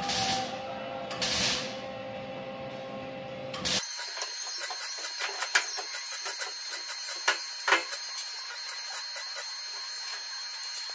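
Background music with a soft swell about every second and a half, then an abrupt cut. After it comes a steady high-pitched whine with a few light knocks of metal truck-body parts being handled and fitted, the loudest three close together in the latter half.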